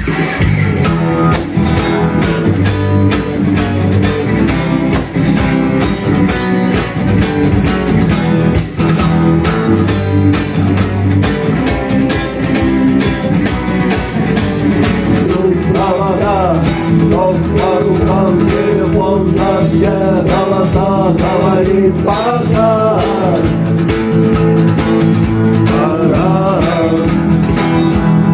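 Instrumental rock intro: guitars over a steady drum beat, with a wavering lead melody coming in about halfway through.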